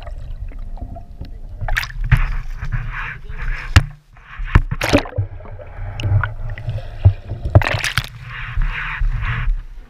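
Sea water sloshing and splashing against a camera mounted low on a boat's hull as it plunges under the surface and comes back out. Several sharp splashes, gushes of rushing water, and a constant low rumble.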